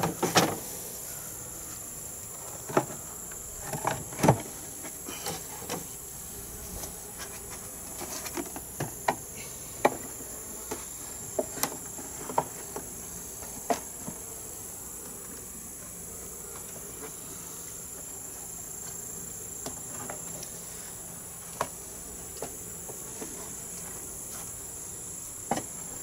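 Wooden hive frames knocking and clicking against a wooden nuc box as they are shifted by hand, in scattered irregular taps, most of them in the first half. Under them runs a steady high-pitched insect drone.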